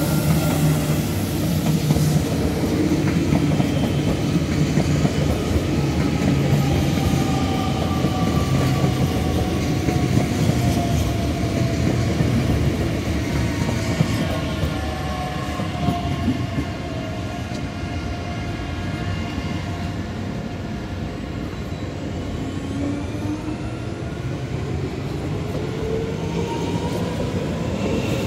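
S-Bahn electric multiple units (DB class 442 Talent 2) running past at close range, with a steady rumble of wheels on rail. An electric motor whine falls slowly in pitch through the middle and rises again near the end.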